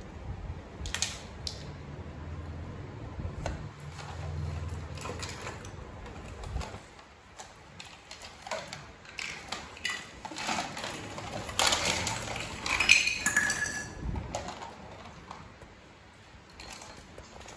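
Small plastic toys clicking, knocking and clattering together as a toddler handles them, in irregular short strokes that grow busiest just past the middle.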